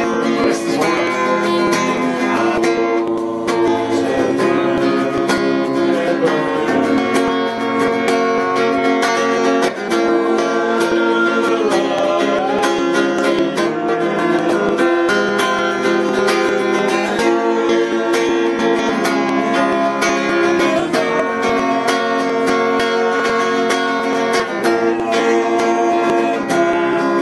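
Guitar music with strummed chords, playing steadily throughout.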